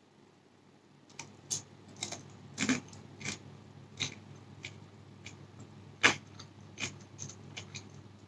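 A person chewing a bite of fried siomay dumpling in thick chili sauce. From about a second in come irregular wet mouth clicks and smacks, the sharpest one about six seconds in.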